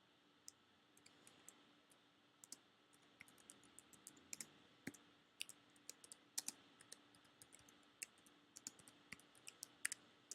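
Typing on a computer keyboard: faint, irregular key clicks, several a second.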